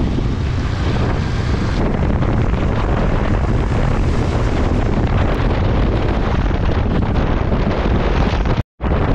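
Steady wind rushing over a motorcycle rider's microphone while riding, a dense, even noise strongest in the low end. The sound drops out completely for an instant near the end.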